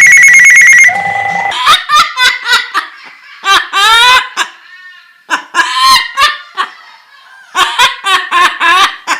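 A loud pulsing ring like a telephone ringer for about the first second and a half, then a parrot's mimicked laughter: bunches of short pitched cackles with pauses between them.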